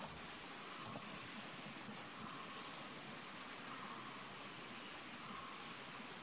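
Forest ambience: a high, steady insect buzz that fades in and out over a faint background hiss.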